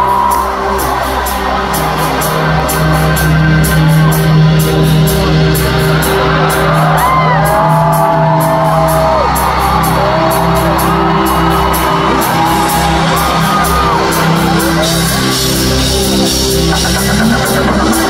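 Live pop concert music played loud through an arena sound system: a steady beat with heavy bass, and a voice singing from about six seconds in. The crowd whoops and shouts over it.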